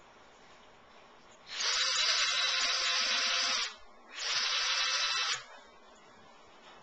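A handheld power tool running in two bursts, one of about two seconds and then a shorter one after a brief pause.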